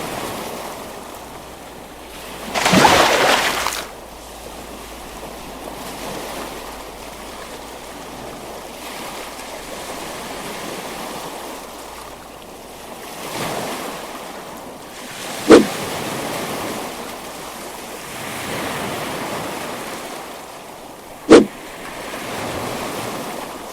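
Sound-effect water ambience: steady lapping and rushing water that swells and eases. About three seconds in there is a louder splash lasting about a second, and later come two short, sharp plops, one around fifteen seconds in and one around twenty-one.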